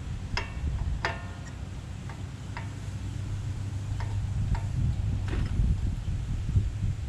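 Light metallic clicks and clinks, about seven spread over a few seconds, some with a short ring, as a new ceramic brake pad is worked into the rear caliper bracket and its spring clips. A low rumble runs underneath.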